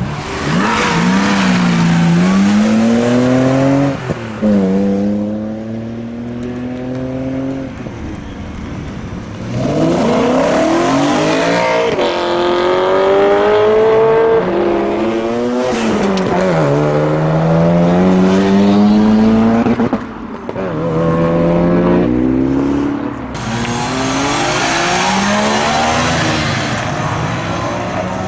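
Several cars accelerating hard away one after another. Each engine revs up through the gears, its pitch climbing and dropping back at every upshift.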